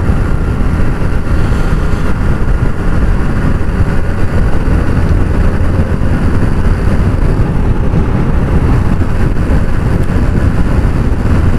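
Suzuki GS 150's single-cylinder four-stroke engine running at a steady cruise, heard from on the motorcycle as a loud, even rumble mixed with road and wind noise.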